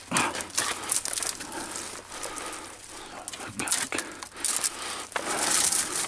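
Rustling and crunching with many quick clicks and knocks of stones and gravel shifting, as someone scrambles through a tight, rubble-strewn passage, catching clothing on the rock.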